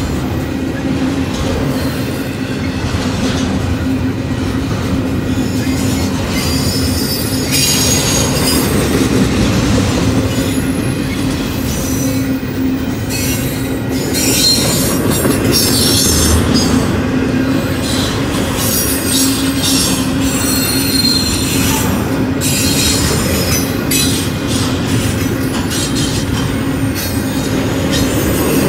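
Double-stack intermodal freight cars rolling past: steel wheels running on the rails in a steady loud rumble with a low drone, high-pitched wheel squeal coming and going, and scattered clicks of wheels over rail joints.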